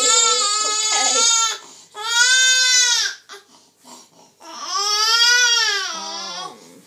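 A young baby crying in long, high, arching wails with short breaks between them; the last wail slides down in pitch as it ends.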